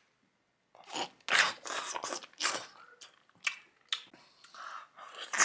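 A person biting into a whole green avocado drizzled with honey and chewing it close to the microphone: a run of short, irregular wet bites and chews starting about a second in.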